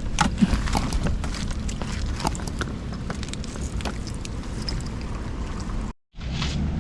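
Wind rumbling on the microphone, with scattered small clicks and knocks from handling. The sound drops out for a moment near the end.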